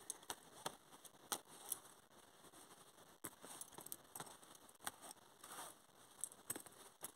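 Faint, irregular clicks of lace bobbins knocking together as pairs of threads are lifted, crossed and twisted on a bobbin lace pillow.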